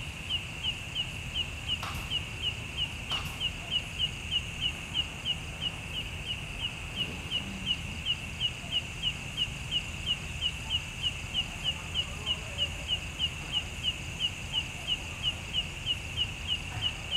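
An animal chirping steadily and evenly, short high chirps at about two and a half a second, over a steady low rumble.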